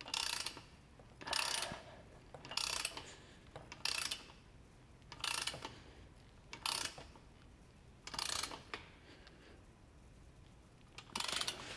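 Ratchet head of a click-type torque wrench ratcheting in short bursts, about one every second and a half, as the handle is swung back and forth to tighten a square-taper crank bolt; after a pause there is a quicker run of ratcheting near the end.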